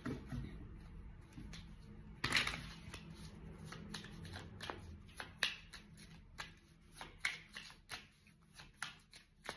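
Oracle cards being shuffled by hand: an irregular run of soft card snaps and riffles, with one louder snap about two seconds in.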